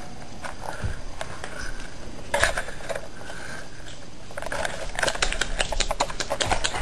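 A puppy's claws clicking and tapping on a hardwood floor as it moves about, a few scattered taps at first, then a quick run of clicks from about halfway through.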